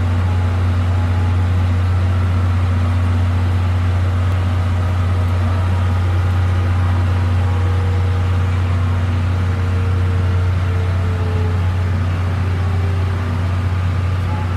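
A standing train's machinery hums low and steady, heard from the conductor's doorway, with a faint higher tone drifting in briefly around the middle.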